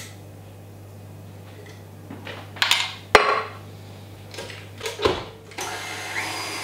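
Clatter of a stand mixer's metal bowl and beater being handled and fitted, with one sharp click about three seconds in. About five and a half seconds in, the stand mixer's motor starts and runs steadily, whipping cream.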